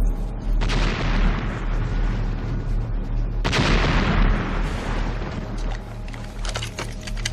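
Artillery shells exploding in a bombardment: two heavy blasts about three seconds apart, each dying away slowly, over a continuous low rumble. A few sharp clicks come near the end.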